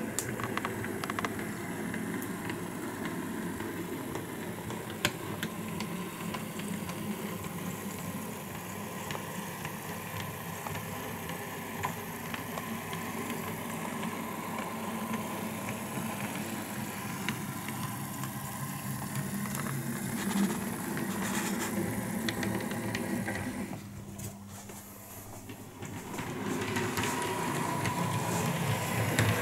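Bachmann Class 25 OO gauge model diesel locomotive running along the track, its small electric motor humming steadily with faint ticking from the wheels on the rails. The sound drops for a couple of seconds near the end, then picks up again.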